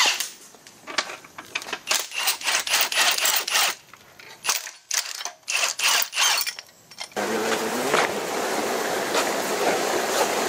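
Cordless impact gun rattling on bolts at the engine block in a run of short bursts. About seven seconds in this cuts abruptly to a steady, even hiss of noise.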